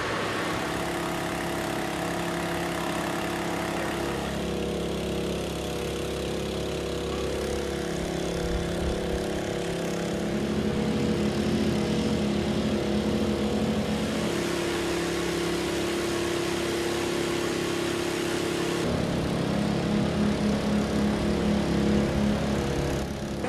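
Engines running steadily, the engine tone changing about four seconds in and again near the end.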